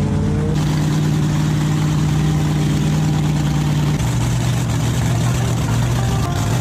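Front-engined dragster's engine idling steadily and loudly; its note drops abruptly to a lower pitch about four seconds in.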